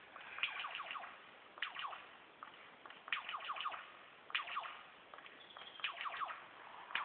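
Superb lyrebird calling: clusters of quick, sharply falling whistled notes, several in a row, repeated about every second and a half.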